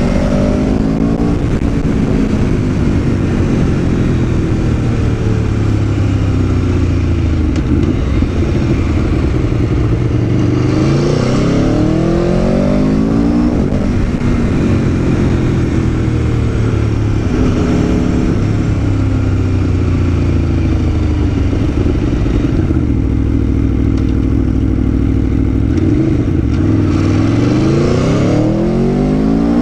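Aprilia Tuono V4 1100's V4 engine under way, its revs climbing steeply several times and dropping back between steadier stretches, as in hard acceleration through the gears.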